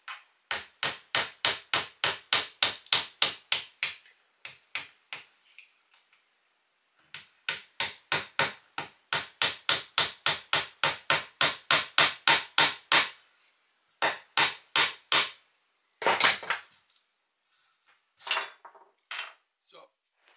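Hammer tapping a small hand chisel into wood to cut a recess by hand: quick, even blows about four a second in two long runs with a pause between, then a few scattered taps and a short noisy burst near the end.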